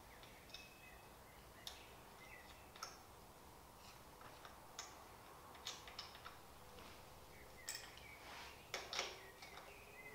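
Faint clicks and light taps of small metal parts as a bolt and mounting bracket are fitted by hand to an aluminium shower-chair frame, with a few short squeaks; the clicks come more thickly and louder about nine seconds in.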